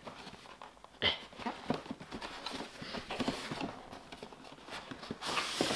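A cardboard box being handled and opened: a sharp tap about a second in, then scattered taps and scraping of the packaging, with a louder sliding, rustling scrape near the end as the box comes open.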